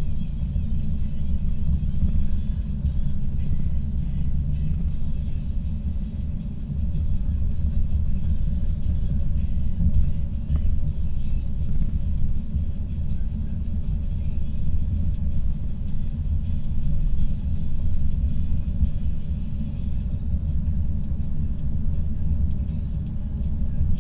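Steady low rumble of a car driving at highway speed, with road and engine noise heard from inside the cabin.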